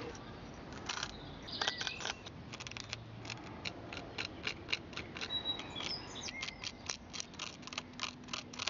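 A small pointed tool scratching and scraping lines into dry cob (clay and sand), a quick irregular run of short dry scrapes, a few a second. A few bird chirps in the background.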